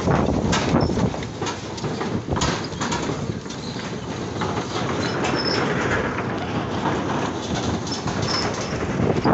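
Loose wooden planks of a bridge deck clattering and knocking irregularly as a small pickup truck rolls over them.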